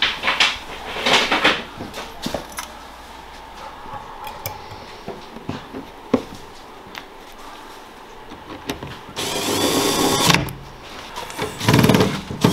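Light clicks and knocks as a metal cabinet-door hinge is handled and fitted, then a cordless drill driving the hinge screws into the wooden cabinet in two short runs near the end.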